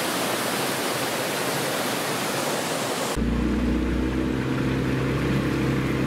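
Waterfall rushing, an even hiss of falling water. About three seconds in it cuts abruptly to a boat motor running steadily at a constant pitch.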